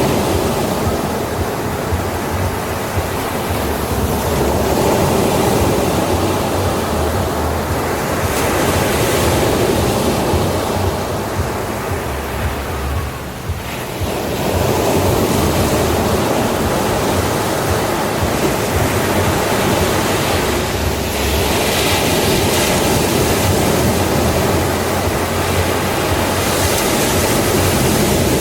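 Ocean surf: waves breaking and washing up the beach in a continuous rushing, which eases briefly about halfway through and then swells again.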